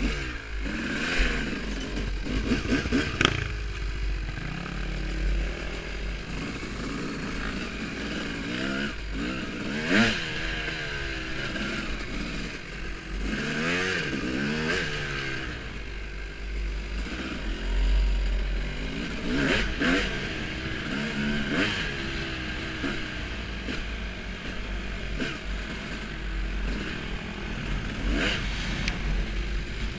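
Honda CR250 two-stroke dirt bike being ridden hard, its engine revving up and backing off again and again, with wind buffeting the helmet-camera microphone.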